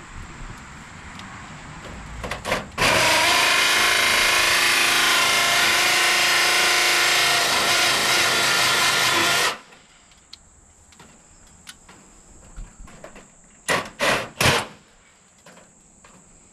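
Power drill running at full speed for about seven seconds, boring a hole, starting about three seconds in and stopping abruptly. A few sharp knocks follow near the end.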